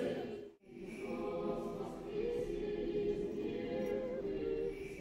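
Orthodox church choir singing a cappella, with long held notes. It breaks off briefly about half a second in, then resumes.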